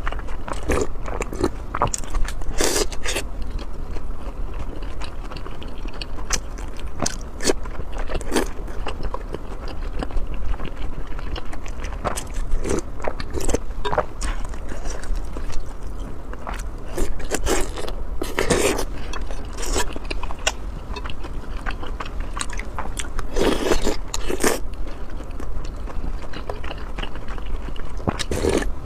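Close-miked chewing and biting of food, with many irregular short eating noises and a few louder bites.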